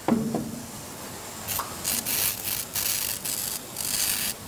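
Irregular bursts of hissing static from electrical interference picked up by the sound system from a running Lakhovsky multiple-wave oscillator. Several rushes of hiss, each a fraction of a second long, start about a second and a half in and cut off just before the end.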